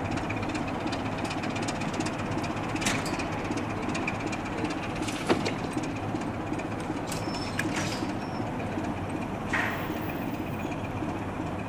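Diesel locomotive running slowly on the line, its engine giving a steady rumble, with a few sharp clicks scattered through it.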